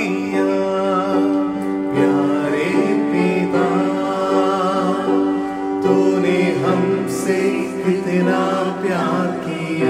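Christian worship song: singing over long held chords.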